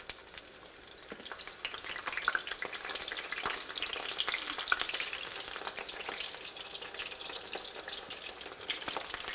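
Raw eggplant slices sizzling in hot olive oil in a frying pan as more slices are laid in. The sizzle swells over the first couple of seconds, then carries on steadily with many small pops.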